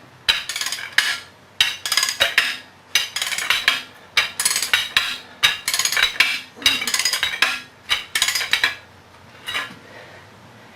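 Steel being struck hard and repeatedly, in quick bursts of several ringing metal-on-metal blows, to drive a stuck flange and hub off a jackshaft. The strikes stop about two thirds of the way through, leaving a low steady hum.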